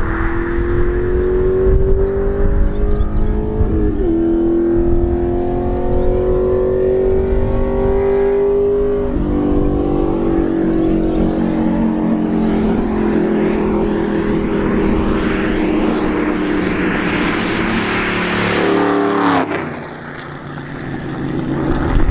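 Cammed Ford 4.6L 2V V8 with long-tube headers, H-pipe and straight pipes, accelerating hard through the gears. The pitch climbs and drops at gear changes about 4 and 9 seconds in, holds high revs, then falls away as the throttle is let off near the end.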